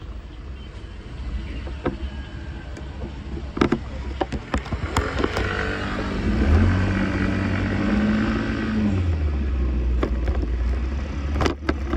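Riding an Arora scooter in traffic: a steady low rumble of engine and wind with road noise, broken by a few sharp knocks. About halfway through, an engine drone swells for a couple of seconds, then drops back.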